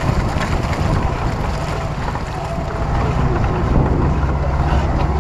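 Wind buffeting the microphone of a camera mounted outside a 4x4, over its engine running as it drives along a dirt track.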